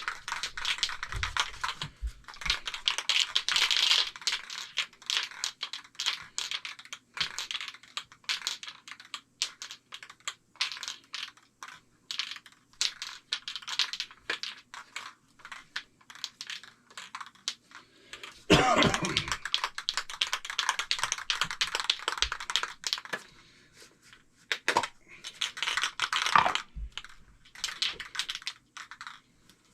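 Aerosol spray-paint can spraying light coats in several bursts of hiss, with many sharp little clicks and crackles throughout.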